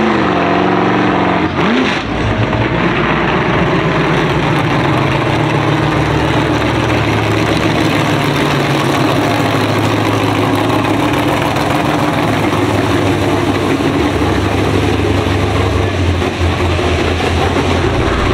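Drag car engine running at low revs and idling, with a steady low engine note and a brief change in pitch in the first couple of seconds.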